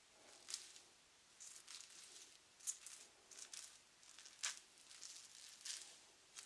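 Soft, crinkly brushing and rubbing close to the microphone in about nine short, irregular strokes, the sharpest about four and a half seconds in.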